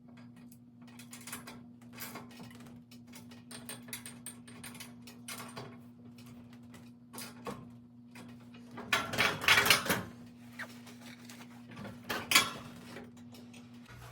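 Metal clinks and clanks of hand tools and hardware being handled on a garage door torsion spring assembly, with a louder run of clanks about nine to ten seconds in and a sharp clank near twelve seconds. A steady low hum runs underneath and cuts off near the end.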